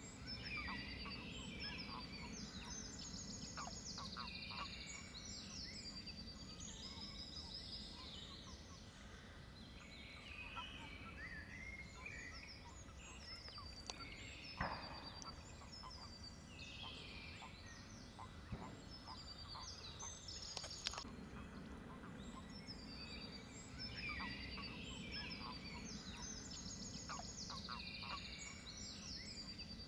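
A chorus of frogs calling in bouts of rapid, high-pitched pulsed calls that swell and die away several times. A couple of sharp clicks or knocks stand out near the middle and about two-thirds through.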